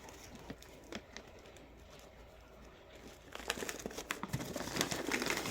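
Packaging crinkling while rough stones are handled, with light clicks as they knock together. There are a few scattered clicks at first, then a busier stretch of rustling and clicking from about three seconds in.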